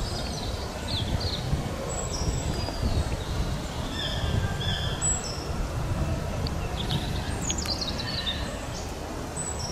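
Small birds calling with short high chirps over a steady low rumble, with a quick run of chirps about seven seconds in.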